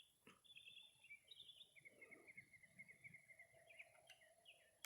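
Faint birdsong over quiet open-air ambience: short chirping phrases, then a long trill of rapid, even notes from about two seconds in.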